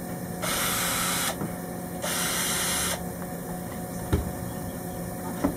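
Cordless drill-driver running in two short bursts of about a second each, backing out the screws that hold the battery switch panel. Two light knocks follow near the end.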